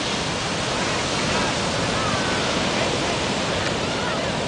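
Ocean surf breaking on a sandy beach: a steady rushing wash of waves. Faint distant voices rise above it a couple of times.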